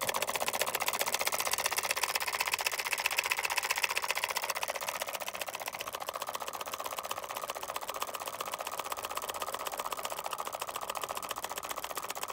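Homemade two-cylinder solenoid engine running: its two electromagnet coils snap the pistons back and forth in a fast, even clatter that turns the paddle-wheel drive. The clatter softens slightly about halfway through.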